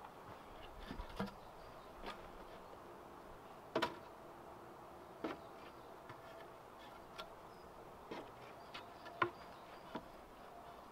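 Scattered wooden knocks and thuds as log poles are handled and laid into place on a log wall, the loudest about four seconds in and near the end. A faint insect buzz comes and goes underneath.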